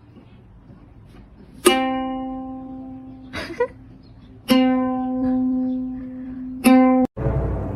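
Three single plucked notes of the same pitch on a string instrument, each ringing and fading, the last cut off short. A brief, softer sound comes between the first two.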